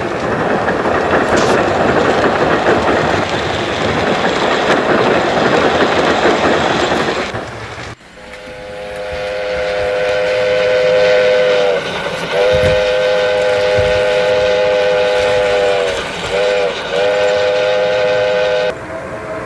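Steam locomotive sound: a steady rush of running and steam noise for about seven seconds, then, after a sudden cut, a multi-chime steam whistle blown in several blasts, two long ones, two short toots and a final long one.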